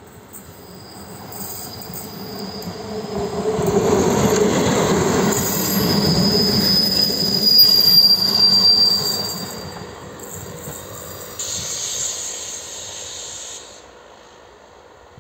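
ČD Regionova diesel railcar running close by: the rumble of the train builds to a loud peak around the middle and fades, with a high wheel squeal at the loudest part. A hiss starts and stops suddenly near the end.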